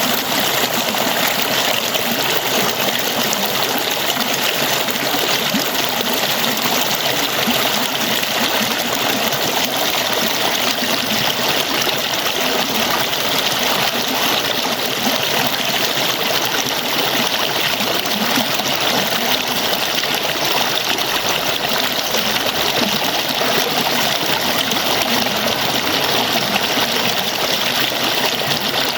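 Falling water splashing in a steady, unbroken rush.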